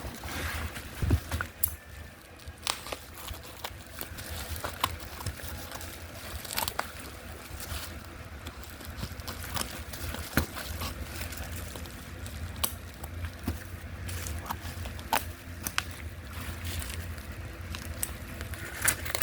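Packaging and bottles of Yamalube oil being handled: scattered clicks, crackles and rustles over a steady low rumble.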